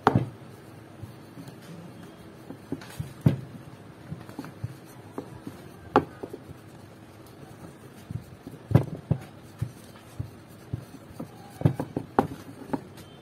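Wooden rolling pin rolling out flour dough on a round wooden board: a soft rubbing, with a few sharp knocks of the pin against the board.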